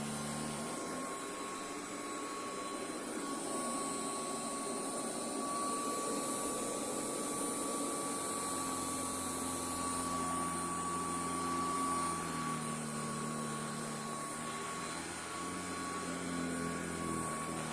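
Royal Commercial Model 608 upright vacuum cleaner running steadily on carpet, with a clear high motor whine over a steady rushing noise. Its lower hum shifts in pitch a few times.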